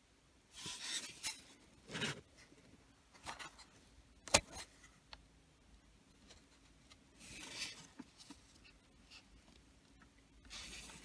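Hard plastic centre-console trim panel of a Jaguar X-Type being handled, rubbing and scraping in several short bouts, with one sharp click about four seconds in.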